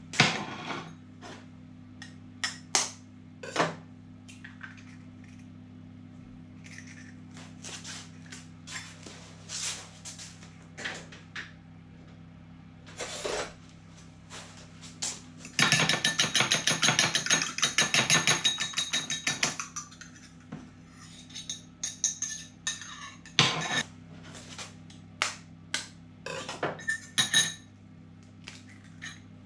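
A bowl set down on a counter with a knock, then eggs tapped and cracked against the bowl and dropped in, with scattered knocks and taps. About halfway through comes roughly four seconds of rapid, even clicking: a fork lightly beating the eggs in the bowl. A steady low hum sits underneath.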